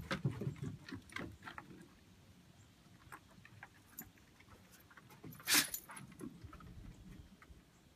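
Great Danes' paws and claws clicking and thudding on a wooden deck, with collar tags jingling, busiest in the first second and a half and sparser after that. About five and a half seconds in comes a short, loud burst of noise.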